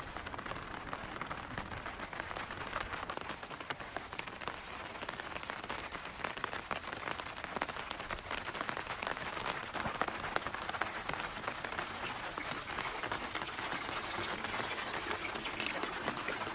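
Steady rain falling, a dense hiss of many small drop impacts.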